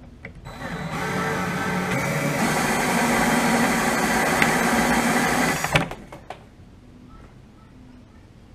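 Cordless drill driving a bench-top wire stripping machine while insulated cable is pulled through its rollers to slit the insulation off the copper. It whirs up about half a second in, runs steadily for about five seconds and stops suddenly, with a click before and after.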